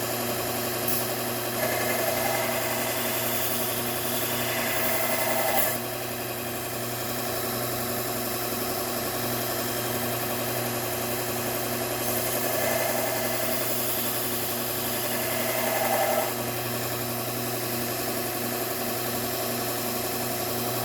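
Bucktool slow-speed belt sharpener running steadily, with two passes of a scissor blade against the belt, each about four seconds long, adding a higher grinding tone. One pass comes a couple of seconds in and the other just past the middle; each cuts off sharply as the blade is lifted away.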